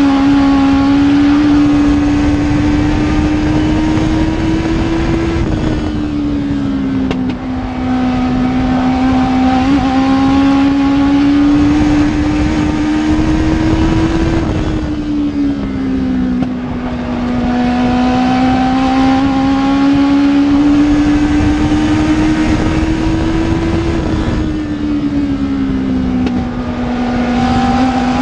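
Legend race car's Yamaha four-cylinder motorcycle engine heard from inside the cockpit at racing speed. The pitch climbs steadily along each straight and drops as the driver lifts for the turns, three times over.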